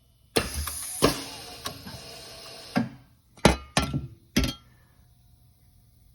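Pneumatic hot dimpling machine cycling. A sudden hiss of air with a metallic clunk fades over a couple of seconds, then come a few more sharp clunks.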